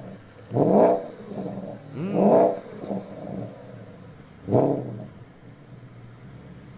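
Porsche Panamera GTS V8 engine revved three times, each blip rising sharply and falling back, then settling to a steady idle.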